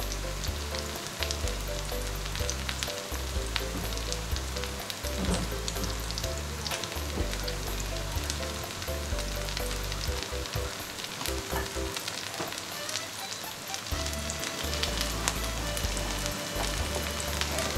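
Takoyaki frying in olive oil in the wells of an electric takoyaki plate: steady oil sizzle with many fine crackles. Soft background music plays underneath and drops out briefly about two-thirds of the way through.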